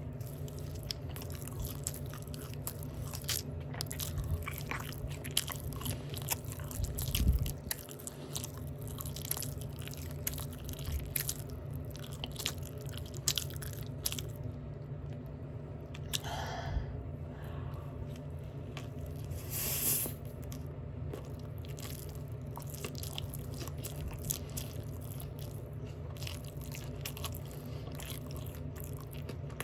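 Close-up open-mouth chewing of a Big Mac burger: a steady run of small clicks and smacks from the mouth, with a low thump about seven seconds in.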